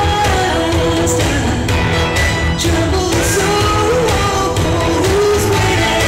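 Recorded song with a singer's voice carrying the melody over a steady beat, the dance routine's music.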